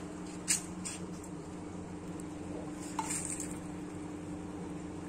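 A few light clinks and taps from a small steel plate being handled, about half a second and one second in and again around three seconds in, over a steady low hum.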